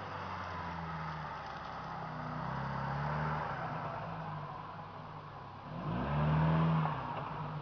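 Engine of an off-road 4x4 revving as it works through mud. Its pitch rises and falls, with the loudest rev, a quick climb then held high, about six seconds in.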